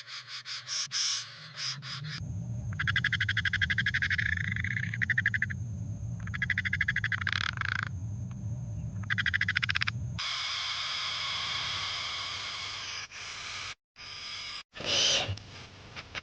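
Frogs calling in rapid pulsing trills, in bouts broken by short pauses, over a low rumble. Near the end a louder short call stands out.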